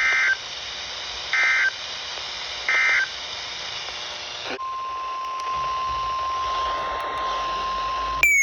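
NOAA Weather Radio emergency alert signalling over receiver hiss: three short buzzy SAME data bursts, the end-of-message code closing the previous warning. About halfway through, the steady 1050 Hz weather radio alert tone starts, running about three and a half seconds before a brief falling chirp cuts it off.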